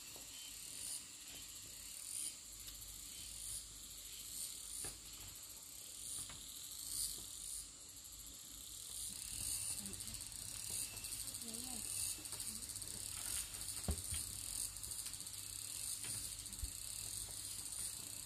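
Insects chirring in a pulsing chorus, in short swells about once a second at first, then denser and more continuous from about halfway.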